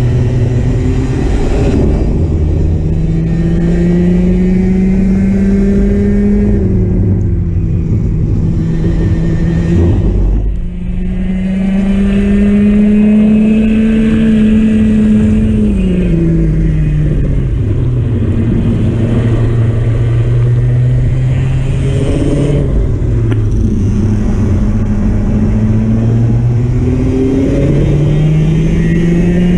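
Racing kart engine heard onboard, revving up along the straights and dropping in pitch when the driver lifts for corners. Its pitch climbs three times and falls twice, peaking around the middle at the highest speed.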